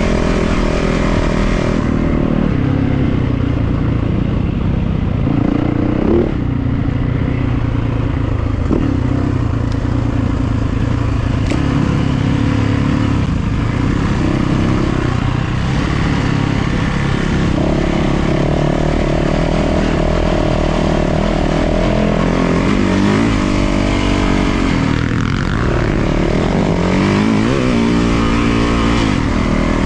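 450cc four-stroke single-cylinder dirt bike engine running continuously while being ridden, its pitch shifting with the throttle and sweeping sharply up and down twice in the last several seconds.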